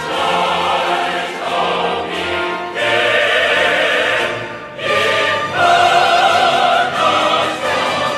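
Music with singing: long held sung notes in phrases, a new phrase starting about three seconds in and another about five seconds in.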